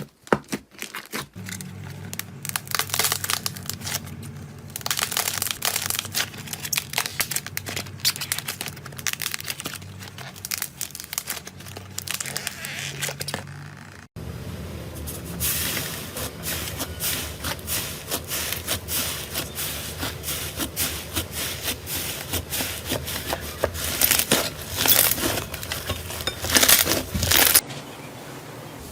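Slime being squeezed and worked by hand: dense, irregular sticky crackles and pops over a faint steady low hum. There is a sudden cut about halfway through to another stretch of the same crackling.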